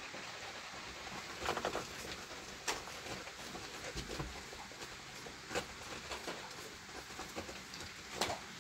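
Newborn husky puppies giving a few brief squeaks: a short cluster about a second and a half in, then single squeaks spaced a few seconds apart.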